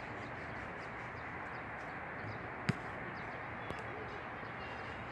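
Steady wind blowing, an even rushing noise, with one sharp click a little past halfway.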